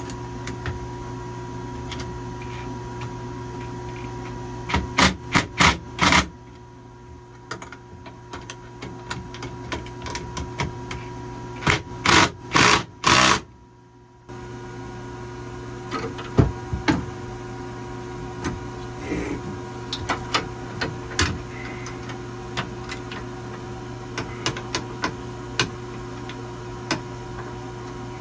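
Clatter of tools and metal hardware being worked during a boat's autopilot drive-unit install: two runs of loud short bursts, then scattered sharp clicks and knocks, over a steady hum.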